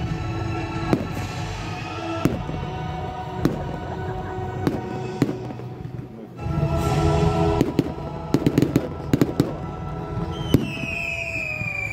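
Fireworks display: sharp bangs and crackling bursts, thickening into a fast run of cracks about eight seconds in, with a falling whistle near the end.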